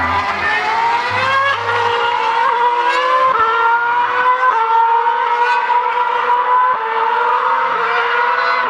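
2013 Formula One cars' 2.4-litre V8 engines, a Mercedes W04 and then a Ferrari F138, running at high revs on track. The shrill engine note climbs and drops in steps as they change gear, with more than one car heard at once.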